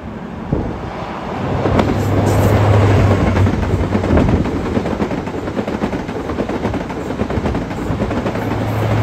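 HST (InterCity 125) passing: the leading Class 43 power car's diesel engine drones as it goes by, over steady wheel-on-rail noise from the coaches. Near the end the rear power car's engine drone comes in again.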